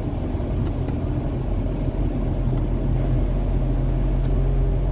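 Car engine and road noise heard from inside the cabin while driving, a steady low rumble that grows slightly louder about a second and a half in. A few faint ticks sound over it.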